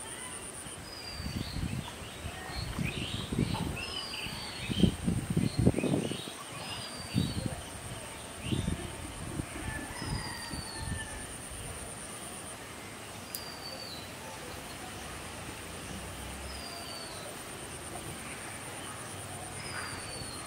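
A bird repeats a short, falling high whistle every two to three seconds over a steady, high-pitched insect trill. In the first half there are also some low, uneven bumps, loudest about five to six seconds in.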